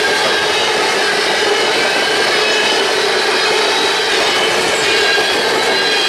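Empty covered hopper cars of a freight train rolling past: a steady noise of steel wheels on rail, with a few thin steady high tones over it.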